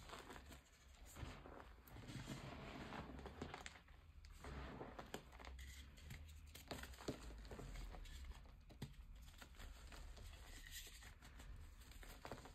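Blocks of gym chalk crushed and crumbled between the fingers: a soft, continuous crunching and crackling full of small snaps as the blocks break into powder.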